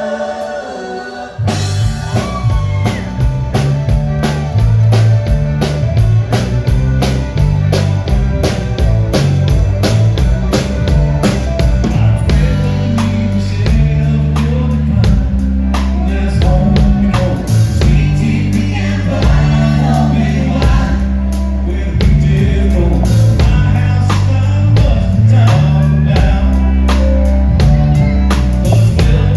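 Live country-rock band. Sung vocal harmonies without instruments break off about a second and a half in, when the full band comes in with drum kit and bass at a steady beat, and the singing goes on over it.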